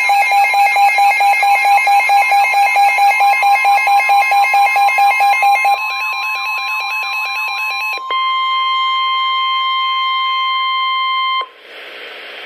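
Weather radio alert: the receiver's pulsing alarm beeps rapidly over NOAA Weather Radio's steady 1050 Hz warning alarm tone. The beeping fades out about halfway through, the tone carries on alone, and it cuts off shortly before the end, leaving radio hiss.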